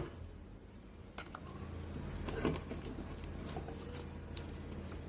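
Faint scattered scratches and small clicks of a blade cutting and lifting the polarizer film off a car radio's LCD screen, over a steady low hum.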